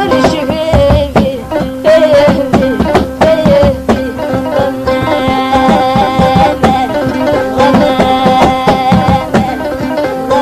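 Traditional Mauritanian music: a plucked string instrument playing fast, quickly repeated notes over a steady beat.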